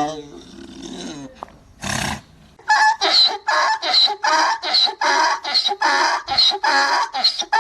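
Donkey braying: one call trails off at the start, then after a short pause a long bray begins as a rapid, rhythmic string of hee-haw pulses, about three a second.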